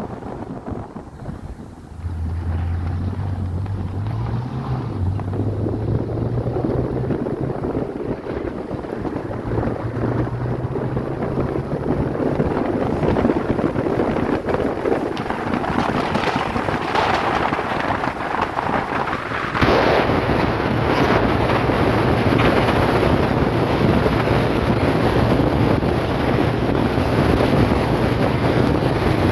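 BMW Z3 sports car being driven, its engine note rising as it accelerates, dropping once about five seconds in as it changes gear, then climbing again. Heavy wind noise on the microphone grows over it and jumps louder about twenty seconds in.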